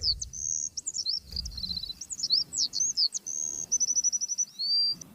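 Songbird singing: a string of varied high chirps and whistled notes, with a fast trill of repeated notes about four seconds in.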